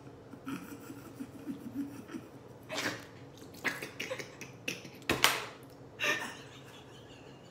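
Stifled laughter from a man and a woman trying not to laugh: several sharp breathy snorts and bursts of breath through the nose, the loudest a little after five seconds in.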